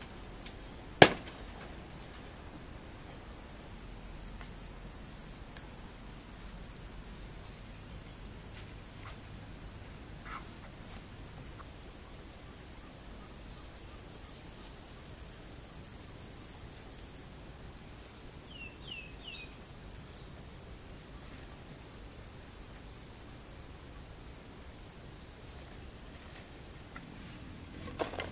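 Steady high-pitched chirring of insects such as crickets. About a second in there is one sharp, loud snap as a banana leaf is cut from the plant. Near the end come three quick high chirps and then a rustle as soil is tipped onto the leaf.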